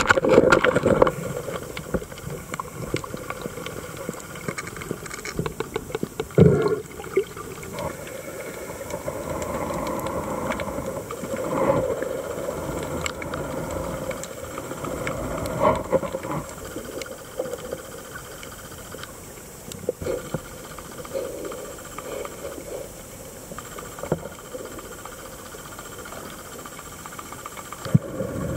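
Underwater sound through a diving camera: a muffled rush of water with bubbling, and scattered clicks and knocks, the loudest near the start and about six and a half seconds in.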